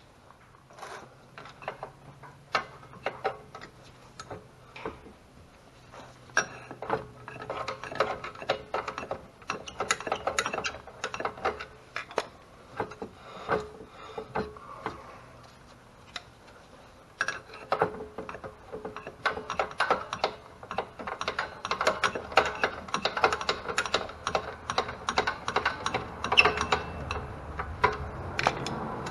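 Rapid ratcheting clicks, in runs with a short pause in the middle, from tools working on an EZGO golf cart's rear drum brakes while the brakes are adjusted.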